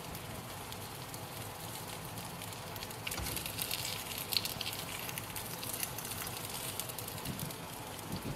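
Paniyaram batter frying in a little oil in a paniyaram pan: a steady sizzle with fine crackling, busier from about three seconds in.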